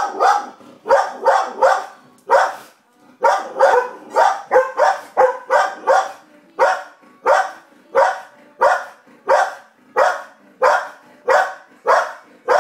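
Goldendoodle barking repeatedly at the television, sharp barks about two a second with one short break about three seconds in.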